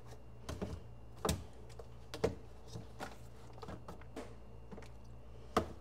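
Food containers clicking and knocking as they are handled and set down on refrigerator shelves: about seven scattered taps, with a low steady hum underneath.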